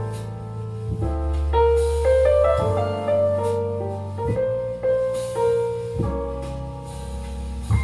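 Music with piano chords over deep sustained bass notes, played at maximum volume through a small portable Bluetooth speaker.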